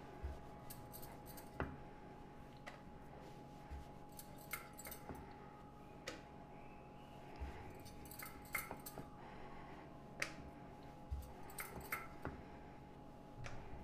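Faint handling sounds of cutting small rounds from rolled semolina dough with a lid on a rolling board: a soft thump every few seconds as the lid is pressed down, with light clicks and brief jingles in between.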